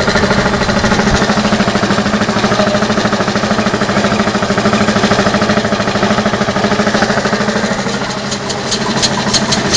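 Hero Honda 98cc single-cylinder engine converted to run on compressed air through a solenoid valve, running with a fast, even beat. Near the end a series of sharp clicks comes through.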